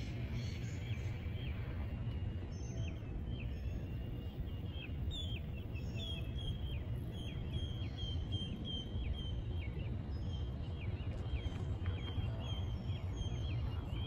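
Wild birds chirping: many short, falling notes, again and again, over a low steady rumble.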